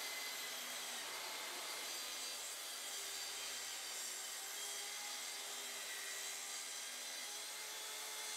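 Festool plunge track saw running along its guide rail, cutting through a glued-up pine 2x4 desktop with a steady, even sound.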